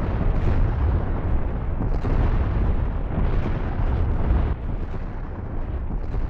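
Designed sound effect of giant Colossal Titans' marching footsteps: repeated heavy booms over a continuous deep rumble, easing a little near the end.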